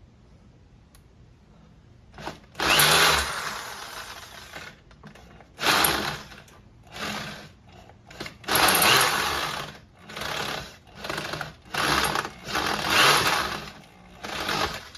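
Power drill run in about eight short, loud bursts, spinning a Husqvarna 128LD trimmer engine over by its starter-collar nut. The socket is slipping on the nut, which is being stripped round.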